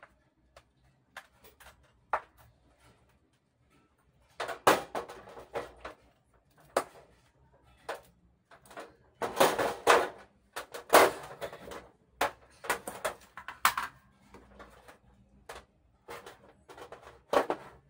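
Scattered knocks, clicks and rustles of handling as a small box and its cables are set down and moved about on the bare metal back panel of an opened LED TV, with louder clusters of knocking and rubbing about four, nine to eleven and thirteen seconds in.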